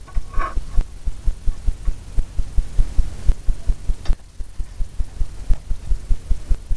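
Steady, rhythmic low thumping, several dull beats a second, with a single sharp click about four seconds in.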